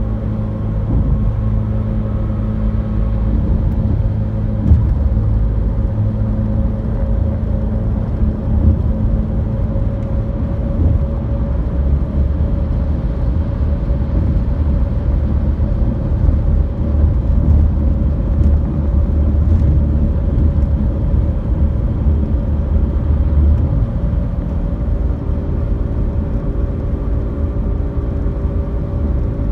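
Road noise inside a moving car's cabin: a steady low rumble of tyres and engine on the bridge roadway.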